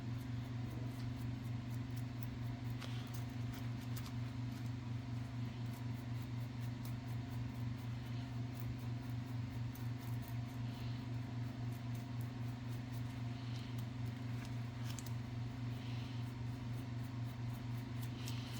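Steady low electrical hum, with a few faint light clicks scattered through.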